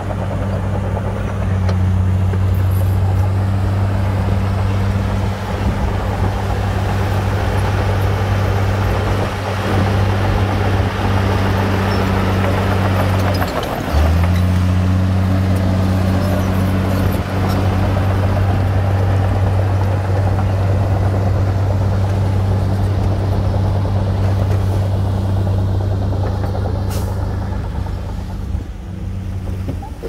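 Komatsu D53P bulldozer's diesel engine running steadily under load, with a brief dip in engine pitch about halfway through before it picks up again, over a rough mechanical rattle.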